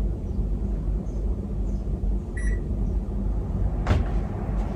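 A single short electronic appliance beep a little past halfway, over a steady low hum, followed by a sharp click near the end.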